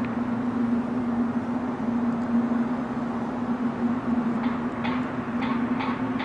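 Steady low droning hum of the kind reported as the unexplained 2012 'mystery sky sounds', over a constant rushing noise, with a few faint ticks in the last two seconds.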